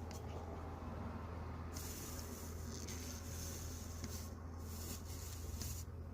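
Soldering iron sizzling and hissing on fluxed copper foil as solder is run along a stained-glass seam, the hiss coming in stretches, over a steady low hum.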